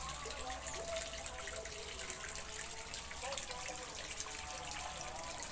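Water trickling and dripping steadily, as from a small pond outflow or running tap.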